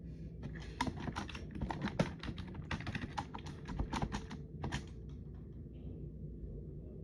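Typing on a computer keyboard: a quick run of key clicks for about four and a half seconds, thinning to a few scattered keystrokes near the end, over a low steady background hum.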